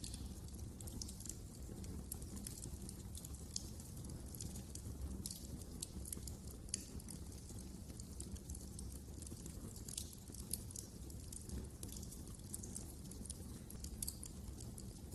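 Wood fire in a fireplace crackling: irregular sharp pops and snaps, several a second, over a steady low rumble of the burning fire.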